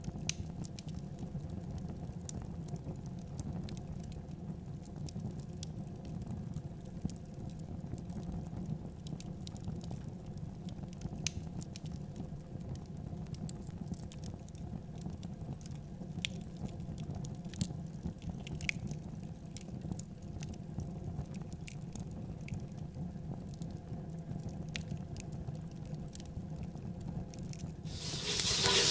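Faint irregular crackles and ticks over a steady low rumble, as rice is dry-roasted and stirred in a metal pot over a wood-fired clay stove. Near the end a much louder rushing noise comes in.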